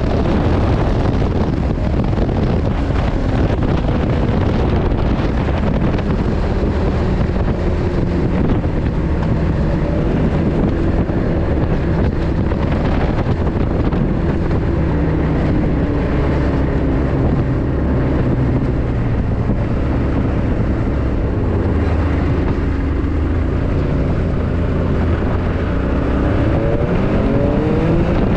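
Snowmobile engine running as the sled travels across snow, with wind buffeting the microphone; the engine's pitch wanders with the throttle and rises near the end as it speeds up.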